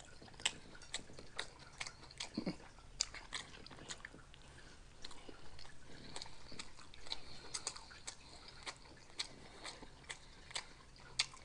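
A person chewing a mouthful of meatballs, gravy and rice close to the microphone, with many irregular soft wet clicks and smacks of the mouth.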